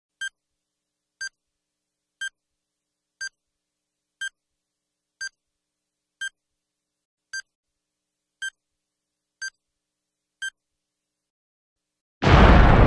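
Bomb countdown timer beeping: a short, high electronic beep about once a second, eleven times. About a second and a half after the last beep, a loud explosion sound effect bursts in near the end.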